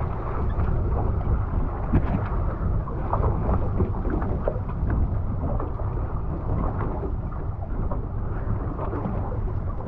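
Steady low rumble of wind buffeting the microphone over a boat's running engine, with scattered small knocks and splashes.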